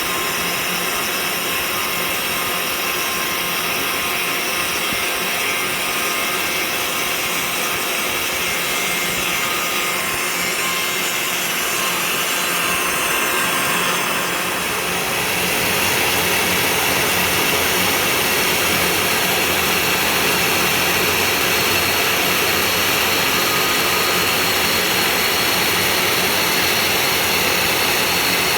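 CNC 3018 Plus desktop router's spindle cutting, a steady high-pitched whine mixed with cutting noise. About halfway through the sound grows slightly louder and a fuller low rumble joins in and holds steady, like a dust-extraction vacuum running.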